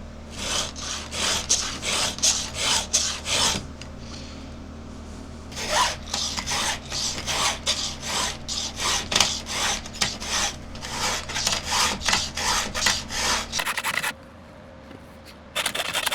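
Chainsaw chain being hand-filed with a Husqvarna file guide: repeated rasping file strokes across a cutter, about two to three a second, in runs with short pauses between.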